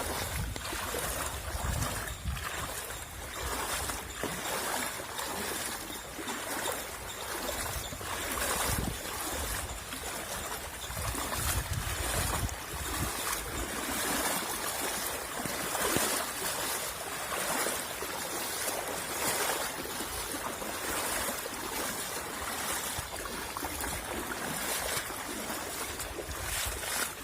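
Floodwater rushing and churning in a steady, noisy rush, with wind rumbling on the microphone for the first few seconds.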